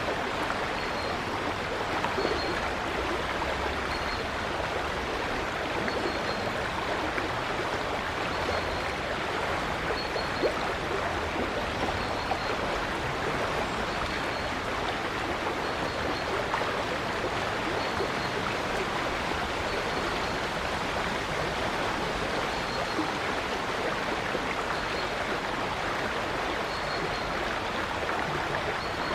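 River water flowing in a steady, even rush, with a faint high chirp repeating about once a second above it.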